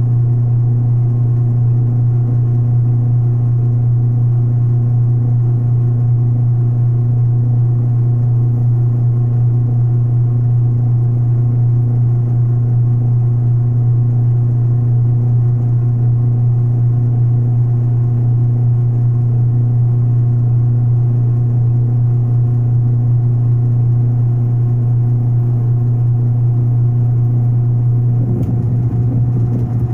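Benchtop metal lathe running steadily, its motor and gear train giving a loud, constant low hum as it turns and cuts a cast lead workpiece. The sound shifts slightly near the end.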